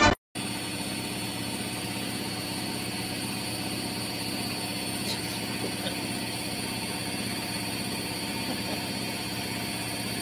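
Front-loading washing machine running: a steady hum with a slow, even pulse from the turning drum.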